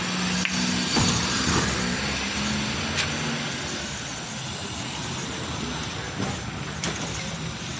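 Car engine running close by, loudest in the first couple of seconds, over a steady street traffic hum. A few sharp clicks sound through it.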